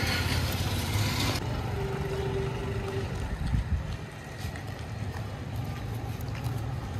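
Steady low engine rumble of vehicles in city traffic. A loud hiss cuts off about a second and a half in, and a short steady tone sounds a little later.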